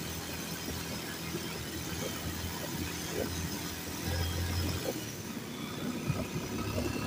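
Motorcycle engine running at low speed, with scattered small knocks and rattles as the bike rides over a rough, patchy lane. The engine hum grows louder for about a second, about four seconds in.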